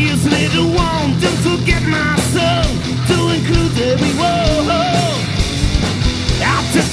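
Rock song playing: a singer's voice over a full band.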